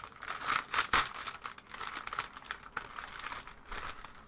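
Clear plastic bag crinkling as hands handle and pull it open, in irregular crackles that are loudest about a second in.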